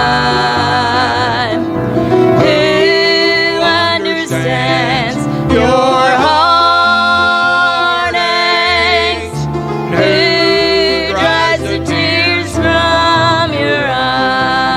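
A gospel song sung with instrumental accompaniment: a singing voice with vibrato carrying the melody over steady, sustained bass notes.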